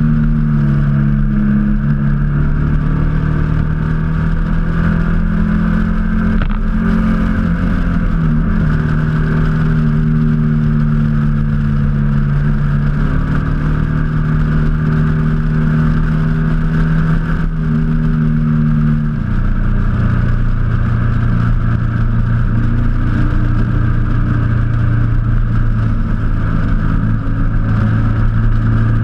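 Motorcycle engine running steadily at road speed, heard from the bike itself, with wind noise over the microphone; the engine note drops to a lower pitch about 19 seconds in.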